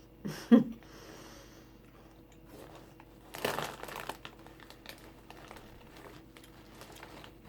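Plastic packaging being handled and crinkling, loudest in a second-long burst near the middle, with faint small clicks around it. A brief, loud vocal sound comes about half a second in.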